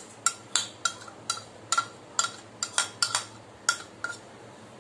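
A steel spoon tapping and clinking against a stainless steel bowl in quick, irregular, sharp taps, about three or four a second, while cream is knocked off the spoon into the bowl; each tap rings briefly.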